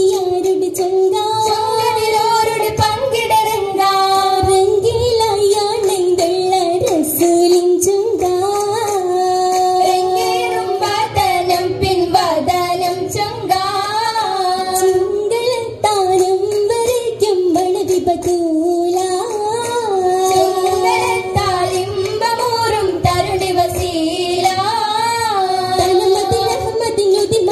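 Girls' voices singing an Oppana song, a Mappila wedding song, in one wavering melody line that runs on without a break, with scattered hand claps.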